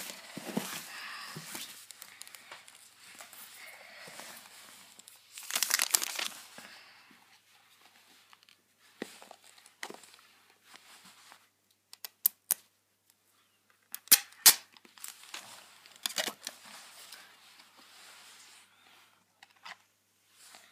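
iPod touch packaging being handled: plastic wrap and paper crinkling and tearing, with a louder rip about six seconds in. After that, a few sharp clicks and taps as the box and its parts are handled.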